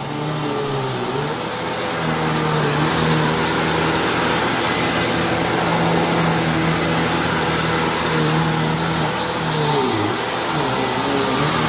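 Hoover WindTunnel Lite upright vacuum cleaner running, a steady rush of air over its motor hum. The motor's pitch sags briefly about a second in and again near ten seconds, then comes back up.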